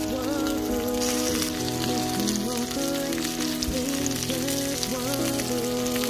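Chicken thighs sizzling and crackling in a hot cast-iron skillet, a dense steady crackle, under background music with a wavering melody.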